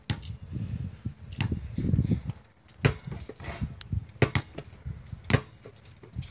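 Low rustling and rumbling, then a scattered series of sharp knocks and thuds, three of them in quick succession about four seconds in.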